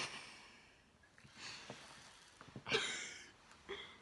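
Several sharp, breathy gasps and sighs from a girl wincing in pain as she peels a pore strip off her nose, the loudest near three seconds in.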